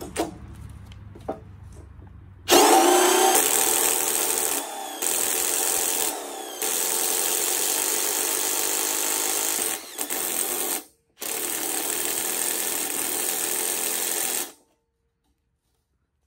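Electric drill driving a 25 mm hole saw through the wall of a 40×20 mm square steel tube: a loud, steady metal-cutting grind that starts about two and a half seconds in, dips briefly a few times and stops for a moment near eleven seconds, then ends once the hole is cut through.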